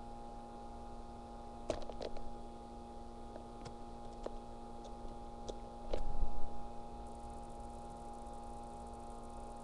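Blue jay at a clear plastic window feeder of sunflower seeds: a clatter about two seconds in as it comes onto the feeder, a few sharp taps as it handles seeds, and a louder thump about six seconds in as it takes off, all over a steady electrical hum.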